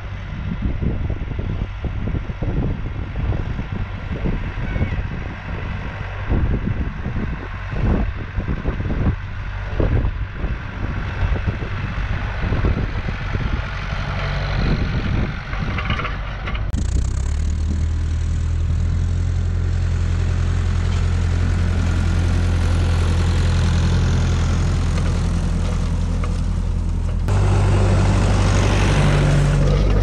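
Massey Ferguson 390 tractor pulling disc harrows, its diesel engine running steadily, with wind buffeting the microphone for the first half. About halfway through, the engine becomes close, loud and steady, and it steps up louder again near the end.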